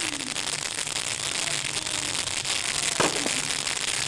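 Daytime ground firework (a smoke effect set on the field) firing, with one sharp bang about three seconds in over a steady hiss.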